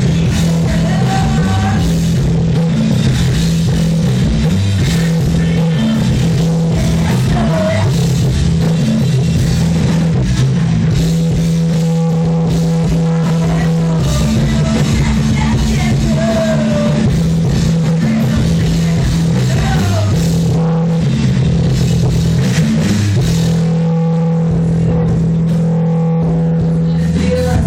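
Loud rock music from a band playing guitar, bass and drum kit, with sustained low notes that shift every second or two.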